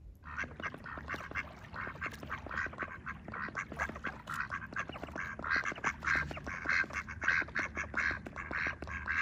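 Several ducks quacking in rapid, overlapping calls with no break, as hungry birds do when begging for food.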